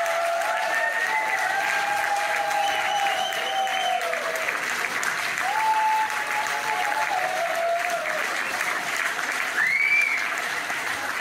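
Audience applauding steadily after a song, with drawn-out cheers in the first half and a single rising-and-falling whistle near the end.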